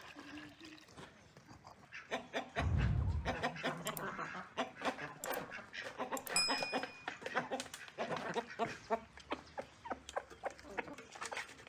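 Chickens and roosters clucking as they feed, with many quick pecking taps as they peck food from a plate. A brief low thump about three seconds in is the loudest sound.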